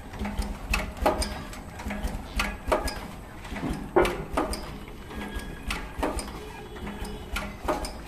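Bag-in-bag tea bag packing machine running, its mechanism clacking in pairs about every second and a half to two seconds over a steady low hum.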